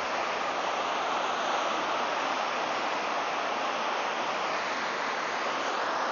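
Whitewater rapids in a mountain river, a steady, even rush of churning water.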